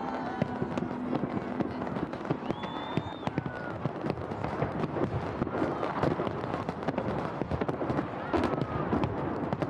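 Fireworks display with shells bursting and crackling in a dense, continuous run of sharp cracks and pops.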